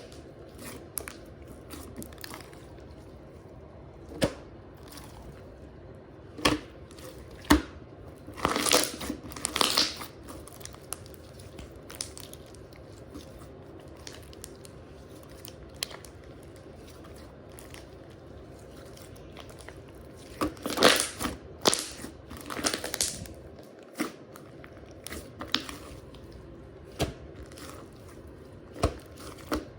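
Slime being handled by hand, giving scattered bursts of crinkly, crackling pops and squishes with quiet stretches in between.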